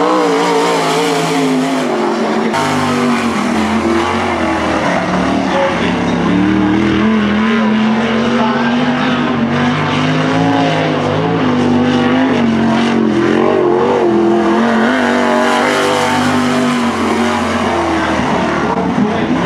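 Limited sprint car's V8 engine running at racing speed around a dirt oval. Its pitch sags and climbs again several times with the throttle, easing into the turns and opening up down the straights.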